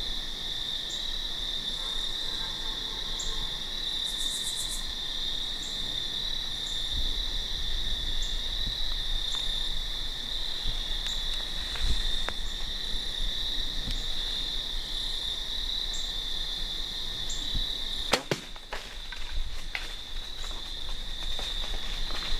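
Steady evening chorus of crickets and other insects, with one insect ticking about once a second. About eighteen seconds in comes the sharp crack of a bow shot on a deer at close range, followed by a couple of seconds of rustling and crashing in dry leaves.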